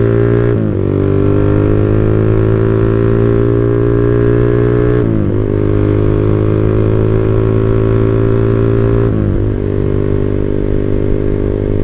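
Motorcycle with a WRX GP5 R2 aftermarket exhaust (25 cm silencer, half baffle) accelerating, shifting up through the gears about half a second, five and nine seconds in, the revs climbing slowly after each shift. The exhaust note is a deep, round bass.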